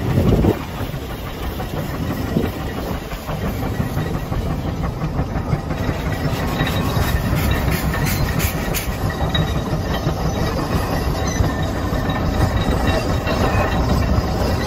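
Case 150 steam traction engine working under heavy load pulling a gang plow: a steady, low, rumbling run that grows slightly louder towards the end, with a short loud burst right at the start.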